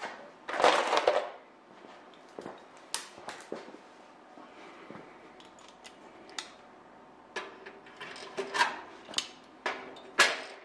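Scattered metallic clicks and clinks of clecos and hand tools being handled against aluminium wing parts, with a brief loud noisy burst about half a second in and a cluster of sharper clicks near the end.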